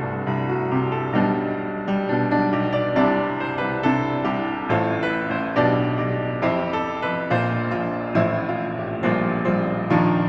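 Solo piano music, notes struck at an even, unhurried pace.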